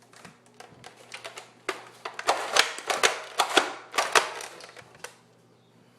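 Quick, irregular plastic clicks and clacks of a homemade Nerf blaster being handled as its breech is loaded, most dense and loudest from about two to four seconds in.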